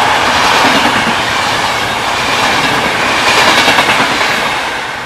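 Passenger coaches of a train passing close by at speed: the wheels rumble and clatter over the rail joints. The noise is loud, swells again about three and a half seconds in, and begins to fade near the end.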